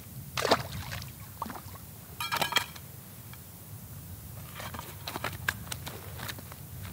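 A small tilapia tossed back into a canal with a brief splash, then scattered clicks and a quick rattle of tilapia flapping in a metal frying pan, over low wind rumble on the microphone.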